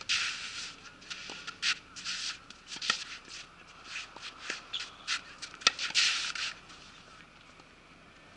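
Tennis rally on a red clay-type court: sharp racket-on-ball hits come about every one and a half seconds, the loudest about six seconds in, with the scrape of shoes sliding on the gritty surface between them. The scraping stops about six and a half seconds in.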